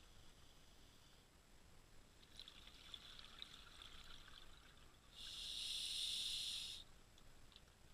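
A scuba diver breathing underwater through a regulator. About five seconds in comes one hissing breath of about a second and a half. Before it, from about two to four and a half seconds in, there is a stretch of crackling bubbles.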